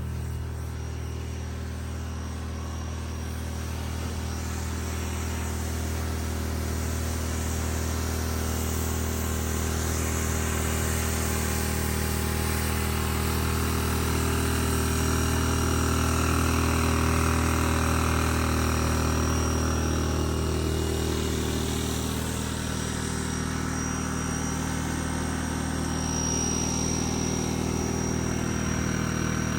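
Pressure-washing rig at work: a small engine drones steadily under the hiss of the water spray, which swells and fades as the spray moves.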